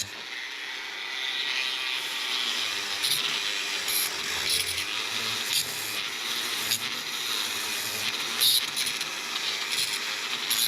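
Metal fittings on a motorcycle water pump being scrubbed clean of crusty corrosion and old sealant residue: an irregular rasping scrub with sharper scrapes every second or so.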